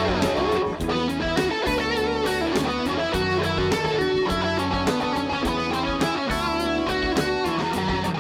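Live rock band playing an instrumental passage: an electric guitar lead with bending notes over a steady drum beat and bass.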